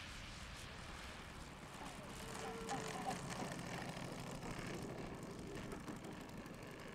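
Saito FG-57TS four-stroke twin-cylinder petrol engine of a model biplane running throttled back at idle through touchdown and rollout on a tarmac runway, a little louder around three seconds in.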